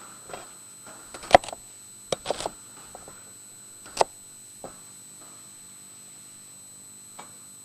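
Kitchen knife cutting celery on a cutting board: a handful of sharp, irregular knocks, the loudest about a second and a half in and another at about four seconds.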